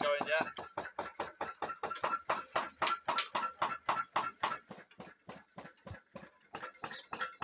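Home-built diaphragm-piston Stirling hot-air engine on a ride-on miniature locomotive running, a steady rhythmic mechanical knocking of about five or six beats a second.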